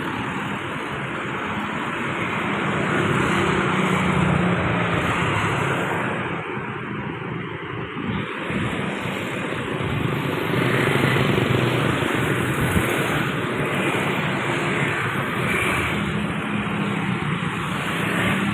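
Road traffic with large vehicles such as buses passing: a continuous engine rumble and road noise that swells as vehicles go by, loudest about four seconds in and again around eleven seconds. No horn melody stands out.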